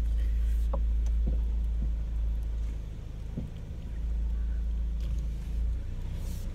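Low, steady rumble of a car heard from inside the cabin, easing for a moment about halfway through, with a few faint small clicks.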